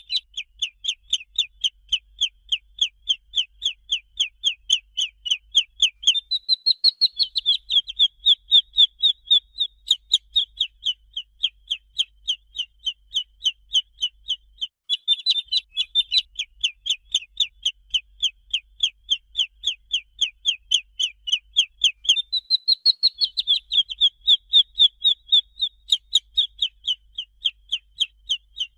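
Domestic chicken chick peeping: a fast, steady run of short high peeps, each falling in pitch, several a second. Twice a brief higher, rising call breaks in.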